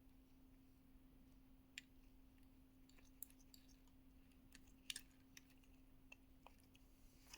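Near silence: a steady low hum with a few faint scattered clicks, the loudest a close pair about five seconds in.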